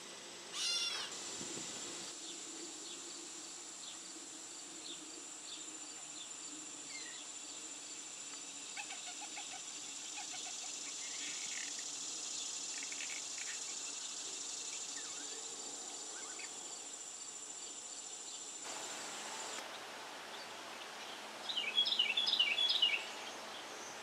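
A gray catbird gives one loud, cat-like mew about half a second in. Faint soft chips and notes of a blue jay's whisper song follow over a steady high-pitched buzz, and near the end a Carolina wren sings a quick run of loud repeated phrases.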